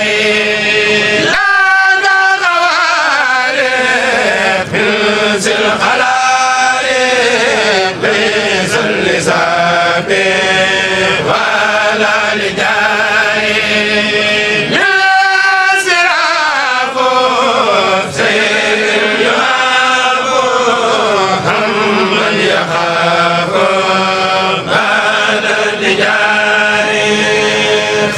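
A kourel chanting group singing a Mouride khassaide, an Arabic religious poem, together in long phrases whose melody slides up and down, with new phrases starting about a second in and again about halfway through.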